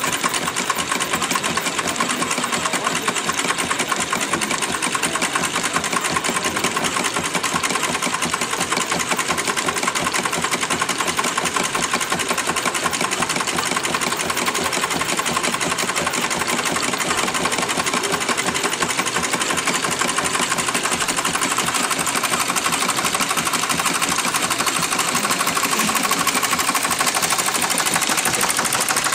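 Several small model stationary steam engines running together on a display table: a fast, even mechanical clatter of rapid exhaust beats and moving parts.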